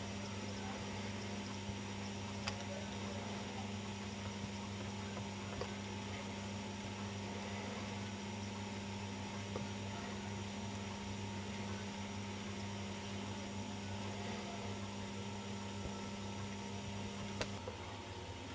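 Steady low electrical hum with a faint hiss and a few faint clicks; part of the hum cuts off with a click near the end.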